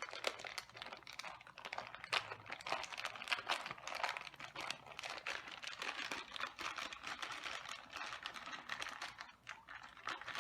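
Plastic packaging crinkling and rustling in the hands, a dense run of small crackles and clicks, as a boxed vinyl figure and its parts are unwrapped.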